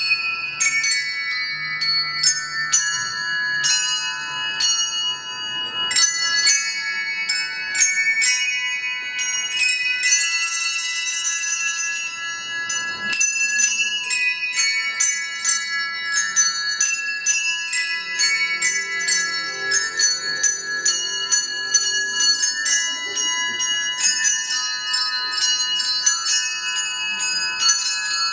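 A ten-player handbell choir ringing a tune in chords, notes struck in quick succession and left to ring on. About ten seconds in comes a couple of seconds of rapid, dense ringing.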